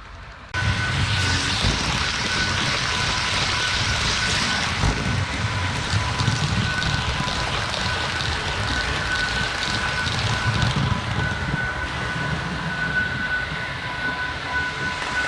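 HO-scale model TGV train running on the layout: a steady rush of wheels and motor with a constant high whine, starting abruptly about half a second in.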